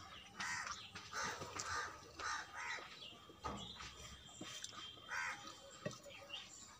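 A bird cawing repeatedly: short harsh calls, roughly two a second, loudest in the first two seconds and again about five seconds in.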